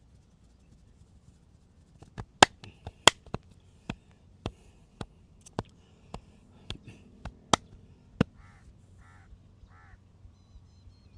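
Massage strokes: the masseur's hands striking the head and back in a run of sharp slaps, unevenly about two a second, the loudest ones early in the run. Three short calls follow near the end.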